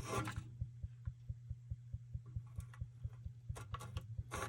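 A steady low hum with faint, evenly spaced ticks about five a second, and a few brief rustles.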